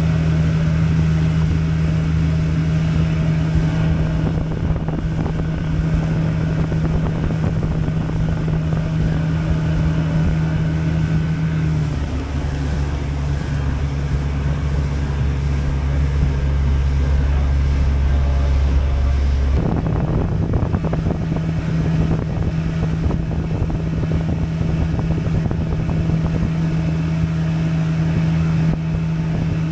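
Boat engine running steadily with the boat underway, a constant low drone. About twelve seconds in the engine note drops lower, and at about twenty seconds it changes abruptly back to the higher note.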